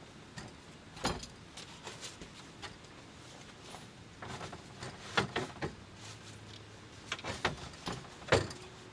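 Scattered sharp knocks and clattering, the loudest about a second in and near the end, from the parts of a Mini Mate tent camper trailer being handled and unfolded during setup.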